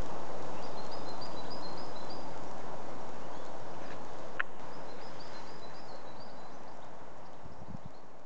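Outdoor woodland ambience: a steady noise haze that fades gradually, with a small bird calling in two runs of quick high chirps and a single sharp note between them.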